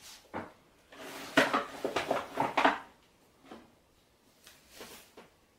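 Dishes and cutlery clattering: a dense run of knocks and clinks with a short metallic ring about a second in, lasting under two seconds, then a few lighter knocks.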